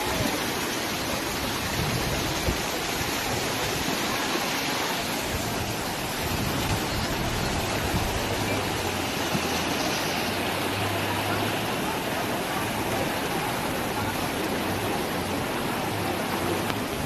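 Floodwater rushing, a steady, even torrent with a faint low hum underneath from about a third of the way in.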